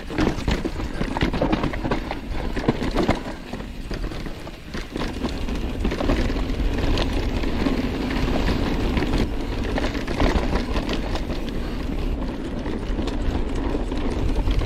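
Mountain bike riding fast down a rough dirt trail: a dense, irregular clatter of tyres, chain and frame rattling over the bumps, above a constant low rumble. It eases briefly about four seconds in, then picks up again.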